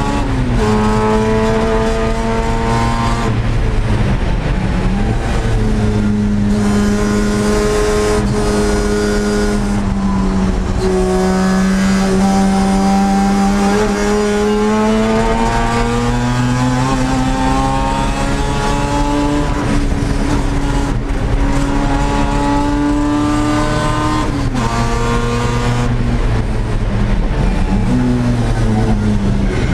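1982 Mazda RX-7's 13B rotary engine running at racing revs under hard acceleration and lifts, heard from inside the cabin. Its pitch drops sharply near the start, a few seconds in and again about 25 seconds in, and climbs slowly through a long pull in the middle.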